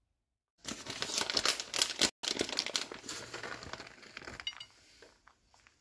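Plastic bag of shredded cheese crinkling as it is handled, starting about half a second in, with a brief break near two seconds, and dying away after four seconds into a few faint ticks.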